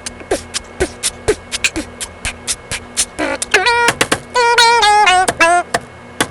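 Vocal percussion made with the mouth: a run of sharp clicks and pops, about four a second, joined about three seconds in by a wavering hummed or sung tone over the continuing clicks.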